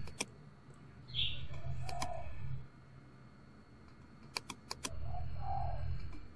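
Sharp clicks of a computer mouse: two at the start, then four in quick succession a little past halfway. A low hum comes and goes twice, each time for about a second and a half.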